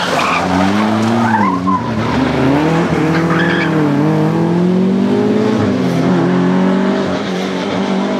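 Citroën DS 23 ie rally car's fuel-injected four-cylinder engine revving hard as the car slides through a tarmac bend, its note rising and falling with the throttle. The tyres squeal in the first couple of seconds and again about three seconds in. A second classic rally car's engine follows close behind.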